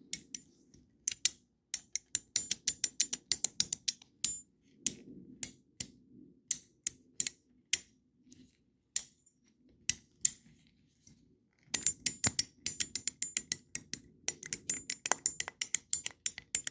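Metal mecha beetle fidget toy clicking as it is worked in the hands: sharp metallic clicks with a slight ring, coming in quick runs near the start and again in the last few seconds, sparser in between.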